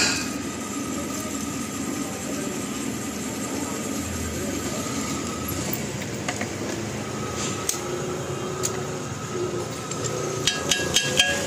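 Drill press running with a twist bit cutting through a steel plate: a steady motor hum with a thin whine from the cut. Near the end come a few sharp metallic clinks.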